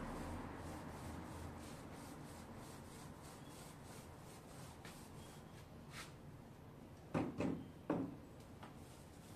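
Faint rubbing of a paint roller rolled over a wall, then about seven seconds in three quick knocks as the roller is dipped into and worked against the plastic paint bucket.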